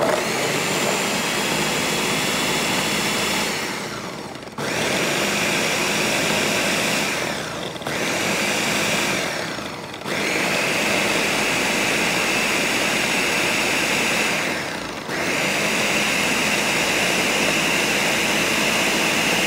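Countertop blender motor running, chopping a thick mix of parsley, cilantro, bell peppers and garlic in oil for Haitian epis. The motor sags and picks back up four times, about 4.5, 8, 10 and 15 seconds in, then runs on steadily to the end.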